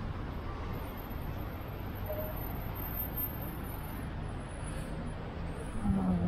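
Street traffic: a steady noise of car engines and tyres on a city road. A low steady hum begins near the end.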